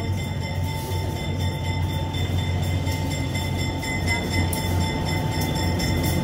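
Narrow-gauge White Pass & Yukon Route diesel locomotive approaching slowly, its engine running with a steady low hum that grows slightly louder as it nears.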